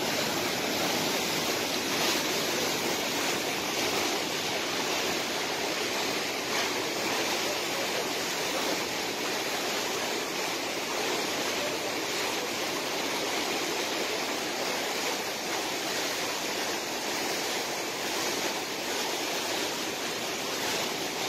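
The Bregalnica river rushing steadily, swollen high and fast by heavy rain.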